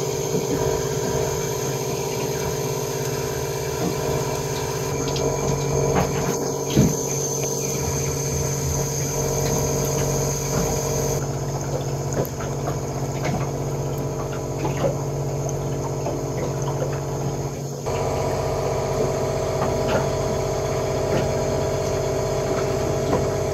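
Reverse-osmosis watermaker running during commissioning: a steady pump hum, with faint clicks and rattles over it.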